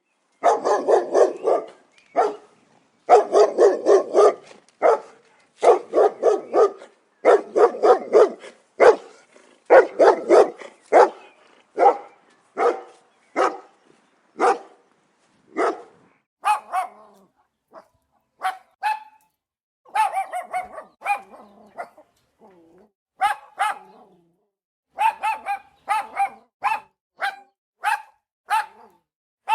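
Dogs barking angrily in rapid volleys of loud, deep barks. About halfway through, the barks turn higher-pitched, sharper and more spaced out.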